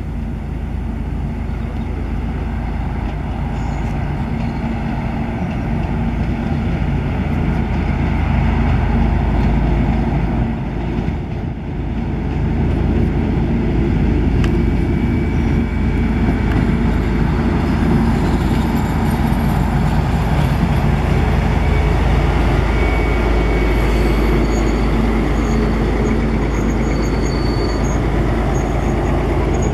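SU46 diesel locomotive arriving with a passenger train: a steady, loud diesel engine hum that grows louder as it draws near and runs alongside, with brief thin high squeals in the second half as it slows.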